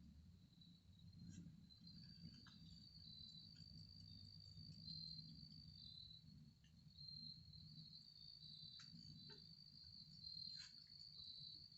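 Faint, steady high-pitched insect trilling, with a few soft clicks and a low background rumble.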